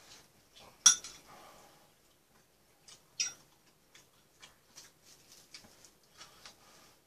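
Metal cutlery clinking against dishes, sharply twice, about a second in and again about three seconds in, amid soft eating sounds of chewing and small mouth clicks.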